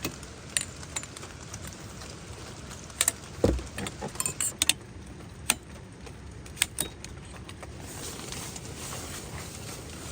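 Scattered sharp clicks and knocks of things being handled, bunched together a few seconds in, with one dull thump about three and a half seconds in, over a steady hiss of rain.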